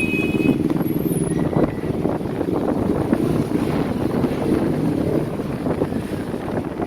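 Vehicle engines running amid steady road noise, with gusty wind buffeting the microphone.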